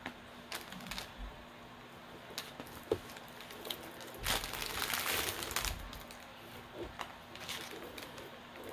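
Clear plastic film on a diamond painting canvas and small plastic bags of drills crinkling and rustling under a hand, with scattered light crackles and one longer, louder rustle about four seconds in.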